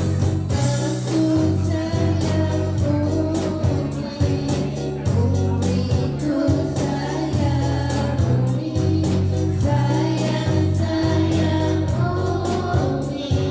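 A chorus of women singing a song to electronic keyboard accompaniment, with a steady beat on a hand-held frame drum, hand drums and a drum kit.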